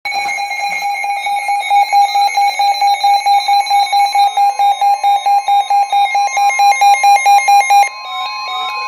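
Loud electronic emergency-alert beeping, a shrill tone pulsing rapidly at about four beeps a second. Near the end it stops abruptly and a different electronic tone with rising sweeps takes over.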